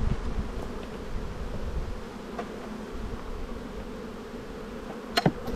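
Honeybees buzzing steadily around an opened hive, with a couple of light knocks near the end.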